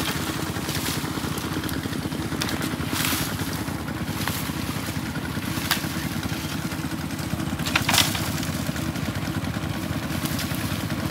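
Small engine of a water pump running steadily, with dry branches crackling and scraping as they are dragged off a brush pile, the loudest snap about eight seconds in.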